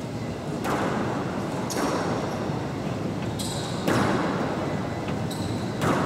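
Squash rally: the ball cracks off racquets and the front wall about five times, echoing in the court, with short high squeaks of court shoes on the wooden floor between strikes.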